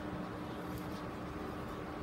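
Steady background hiss with a faint steady hum, and faint light handling noise as a plastic planting grid is gripped and tilted.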